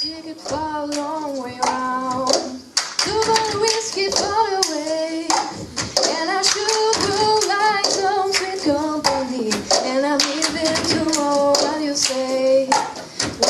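Several girls singing together while they beat out a cup-game rhythm: plastic cups tapped and knocked on a tabletop, with hand claps in a quick repeating pattern.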